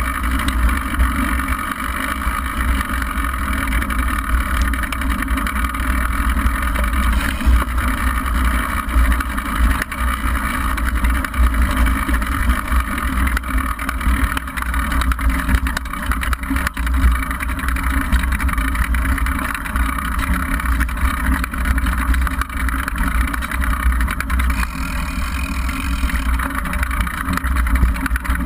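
Downhill mountain bike ridden down a stony dirt trail, heard from a camera mounted on the bike: a steady low rumble of wind and knobby tyres over gravel, with constant fine rattling.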